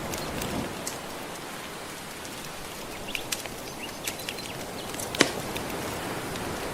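Wood fire crackling with scattered sharp pops, the loudest about five seconds in, over a steady wash of gentle ocean waves.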